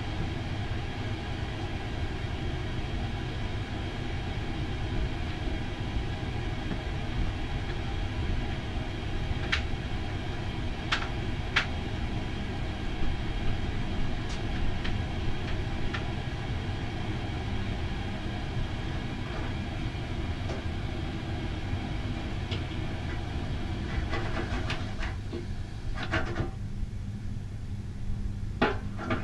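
Steady low rumble and hum of a ferry's engines and machinery, heard from on board. A few sharp clicks come about ten seconds in, and a cluster of knocks near the end.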